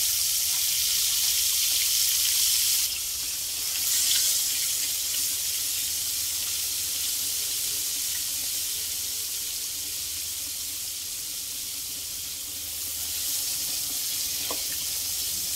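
Flour-dusted pressure-cooked milkfish frying in hot oil in a wok: a steady, high, even sizzle, loudest in the first few seconds and easing somewhat after. There is no spattering or popping, because the flour coating keeps the oil from bursting.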